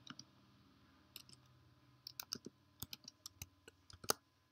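Faint typing on a computer keyboard: a few scattered keystrokes, then a quicker run of key clicks in the second half.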